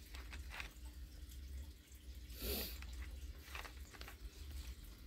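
Close-up mouth sounds of a man sipping and swallowing a drink: small wet clicks, with one louder slurp about halfway through.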